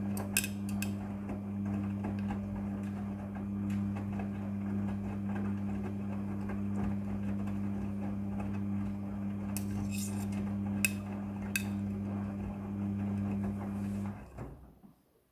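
Midea front-loading washing machine running: a steady motor hum over the noise of the tumbling drum, with a few sharp clicks and knocks. The hum cuts off suddenly about a second before the end.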